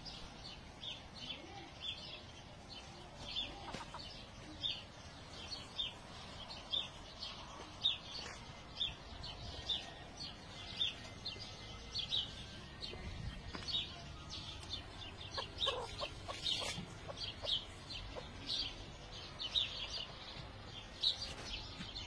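Light Brahma bantam chickens calling: short, high-pitched chirps about one or two a second, with a few lower clucks around the middle.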